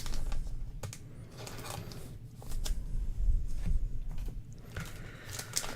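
Trading cards being handled and slid against one another, giving soft rustles and a few light clicks, over a steady low hum.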